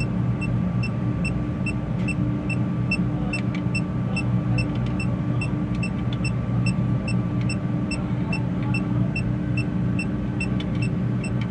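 Electronic refrigerant leak detector beeping at a steady, even rate, a little over two short beeps a second, while its probe is held at a compressor fitting. The unchanging rate means no leak. Under it is the steady hum of the running refrigeration compressor.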